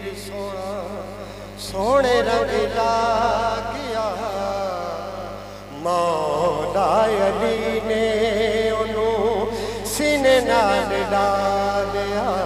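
A man's voice singing a Punjabi manqabat (devotional praise song) into a microphone, in long held, wavering phrases that begin about two, six and ten seconds in, with a steady low hum beneath.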